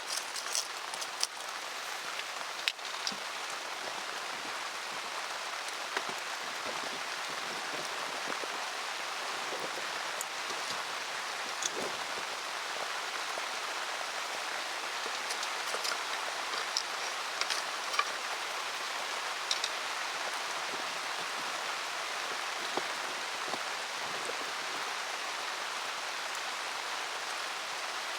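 Steady rain falling, an even hiss, with scattered sharp ticks and pops here and there.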